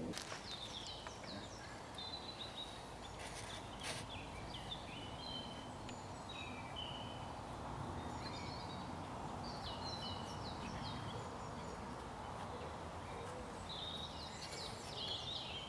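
Small songbirds singing: short, varied chirping phrases recurring throughout over a steady background hiss, with a couple of faint knocks near the start and about four seconds in.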